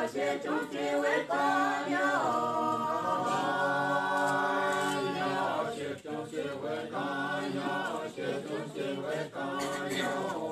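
Unaccompanied (a cappella) singing voices, with a long held note about halfway through.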